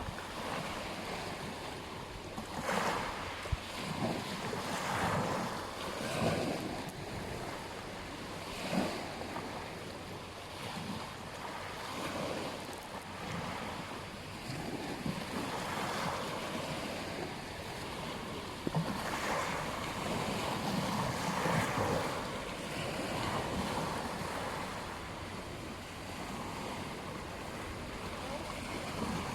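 Ocean waves breaking and washing up on a beach, swelling and fading every few seconds, with wind in the background.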